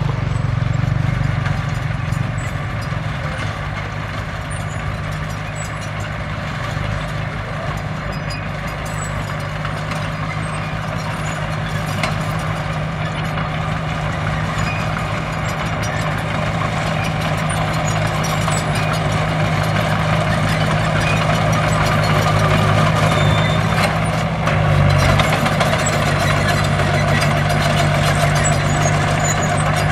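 Heavy diesel engine of a construction machine running steadily, with a brief change in its note about three-quarters of the way through.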